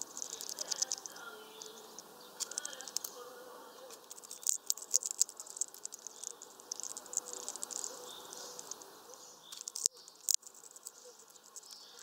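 Hawfinch at a seed feeder: scattered light clicks and crackles of seeds and husks being handled and cracked, with two sharper clicks near the end. A high, fitful chirring runs underneath.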